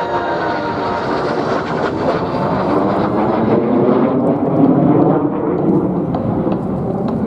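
Jet aircraft flying past. A whine falls in pitch over the first couple of seconds, and the noise of the jets builds to its loudest about four to five seconds in.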